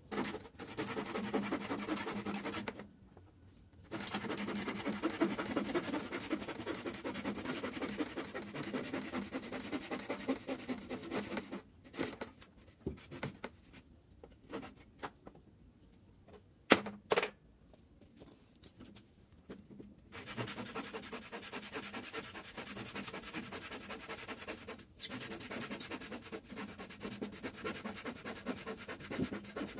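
Handsaw cutting through a weathered wooden pallet board in quick back-and-forth strokes, in several long runs with pauses between. A single sharp knock about halfway through is the loudest sound.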